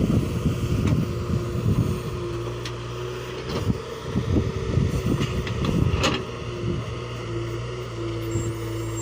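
Diesel engine of a JCB 3DX backhoe loader running steadily while it loads mud into a tractor trolley, with clattering knocks and louder spells in roughly the first two seconds and again about four to six seconds in.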